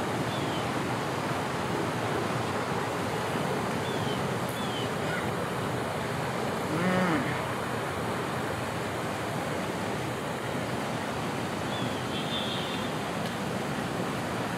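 Steady rushing outdoor noise, with a few faint high chirps and a brief faint pitched call about seven seconds in.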